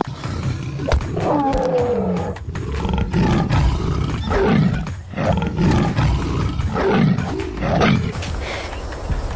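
A large wild animal roaring and growling: a falling call about a second in, then a run of repeated deep roars.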